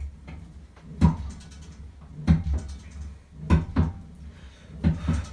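Bowflex home gym clunking with each chest-fly repetition: a short, loud knock from the cables and rods about every second and a quarter, one of them doubled, over a low steady hum.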